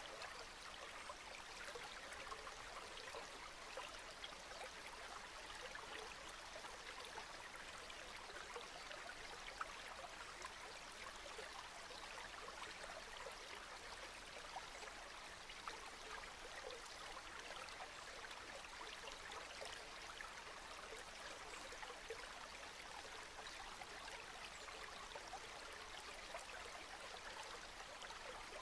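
Soft, steady rain: an even hiss with many small drops pattering throughout.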